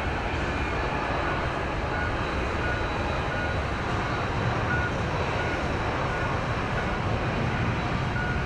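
Jet airliner engines running steadily, a constant rumble and hiss with no rise or fall. A faint short beep repeats about every second and a half.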